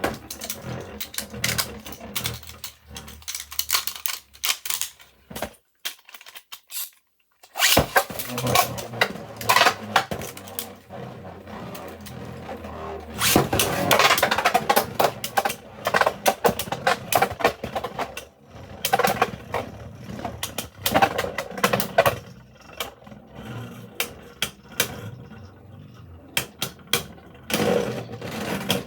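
3D-printed Beyblade spinning tops clashing and scraping in a plastic stadium, with rapid, irregular clacks. The clacks stop for about two seconds around six seconds in, then come thick again.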